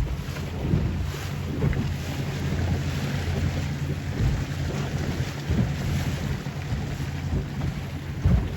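Motorboat engine running steadily at cruising speed, a low hum under wind buffeting the microphone.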